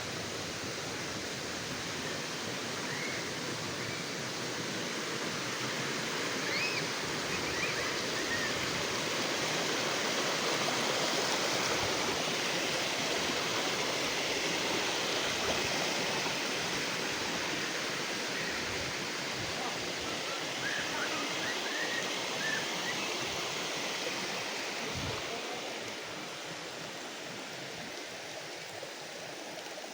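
Small river flowing: a steady rush of water, a little louder in the middle and easing near the end, with a few faint high chirps.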